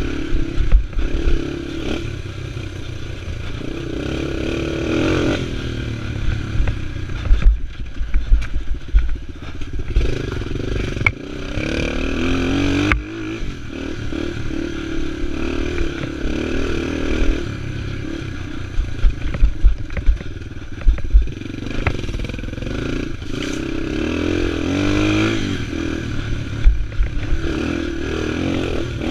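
Yamaha TT-R230 dirt bike's single-cylinder four-stroke engine running under load, its pitch rising and falling again and again with the throttle. Frequent clattering thuds from the bike come through over it.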